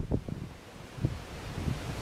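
Wind buffeting the microphone in irregular gusts, easing a little about half a second in and picking up again after a second, with beech leaves rustling.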